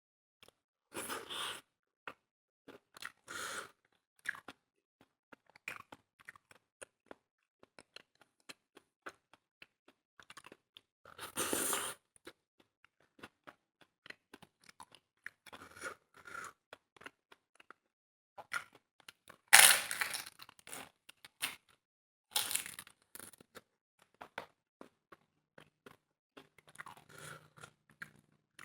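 Close-miked eating: chewing and crunching of food with small wet mouth clicks, in separate short bursts, the loudest about twenty seconds in.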